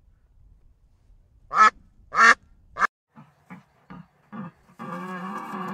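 A duck quacking: three loud, sharp quacks about half a second apart, followed by a few softer, shorter calls. Near the end a longer, lower drawn-out animal call begins.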